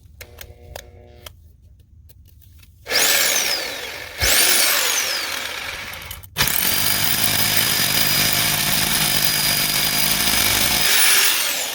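Bauer SDS-plus rotary hammer drill with a four-cutter solid carbide bit boring into concrete. It starts about three seconds in and runs in three goes, with two short stops, and the last run is steady for about five seconds. The bit goes down fast, about 4 inches in 2 seconds.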